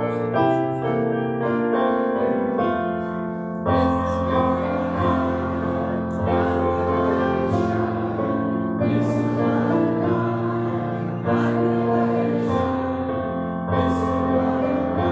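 Keyboard playing a hymn in sustained chords that change every second or two.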